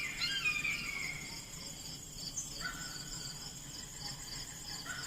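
Crickets trilling in a steady high chorus, with short chirps falling in pitch near the start and again near the end.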